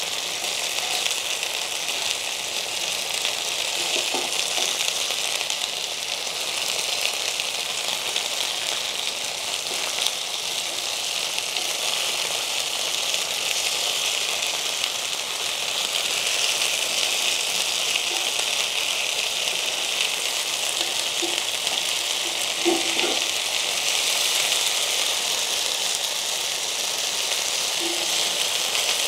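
Marinated chicken pieces sizzling steadily in hot oil in a cast iron skillet as they sear. A few light knocks of metal tongs against the pan come as the pieces are turned, the loudest about two-thirds of the way in.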